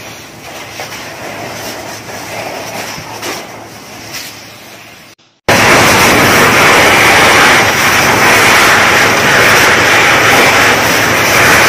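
Steady background noise for about five seconds, then after a brief gap a much louder steady hiss of a fire hose spraying water close by.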